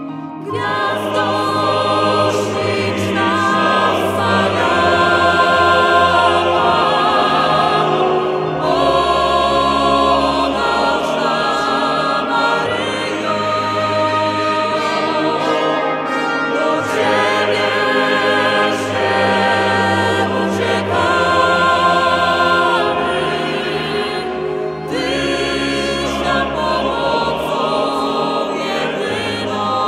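Choral music: a choir singing with orchestral accompaniment, in several long phrases.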